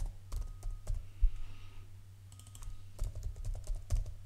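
Typing on a computer keyboard: two runs of quick keystrokes with a pause of about a second between them, over a low steady electrical hum.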